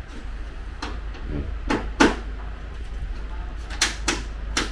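Several sharp clicks and knocks of hardware on an aluminum sliding glass door frame as it is fitted and adjusted by hand, the loudest about two seconds in, over a low steady hum.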